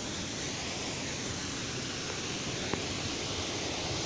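Waterfall: a steady rush of falling water, with one light click about three seconds in.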